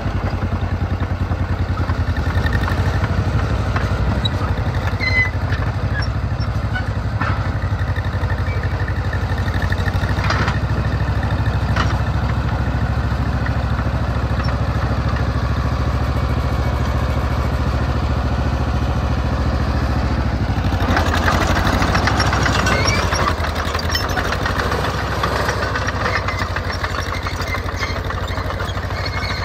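John Deere 420C crawler tractor's two-cylinder engine running steadily as the crawler is driven. It gets louder and noisier for a couple of seconds about two-thirds of the way through.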